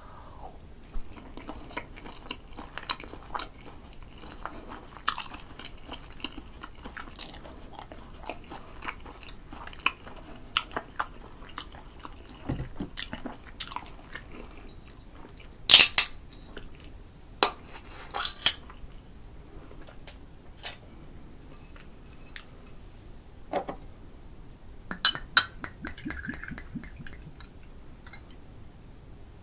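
Close-miked chewing of a mouthful of grilled eel in spicy sauce: soft, wet mouth clicks scattered throughout, with a few louder sharp clicks about halfway through.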